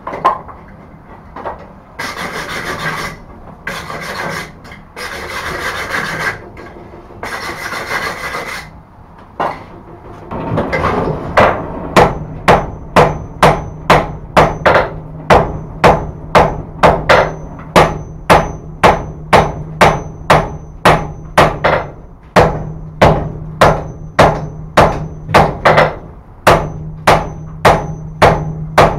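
A hand hammer forging a white-hot forge-welded steel and wrought-iron billet on an anvil. First come four rough scraping strokes, about a second each. Then, from about a third of the way in, steady hammer blows at about two a second, each with a high ring from the anvil, over a low steady hum.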